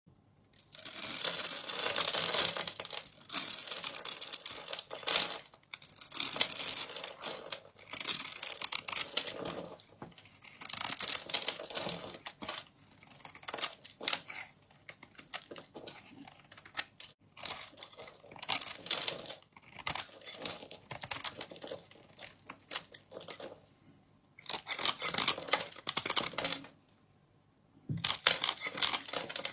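Knife carving a bar of soap: a run of crisp scraping, crackling cuts of a second or two each, separated by short pauses, with a longer pause near the end.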